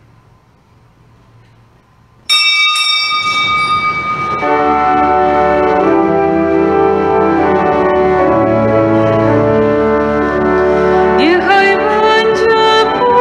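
A small hand bell rings sharply about two seconds in and fades. Pipe organ chords then start and are held, and a singing voice comes in near the end.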